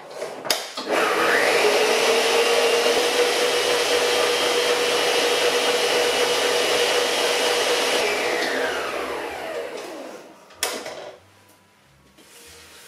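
Electric stand mixer creaming butter and sugar. After a click, the motor winds up about a second in and runs steadily, then is switched off about eight seconds in and winds down in pitch. A sharp click follows near the end.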